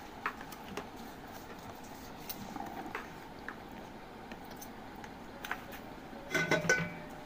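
Small clicks and taps of a metal spoon against a plastic spice box as salt is scooped out and added to a pressure cooker, followed about six seconds in by a brief louder squeak as the plastic lid is pressed shut.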